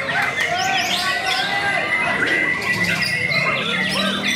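A caged white-rumped shama singing among many other caged songbirds: a dense chorus of overlapping whistles, chirps and trills, with a murmur of voices behind.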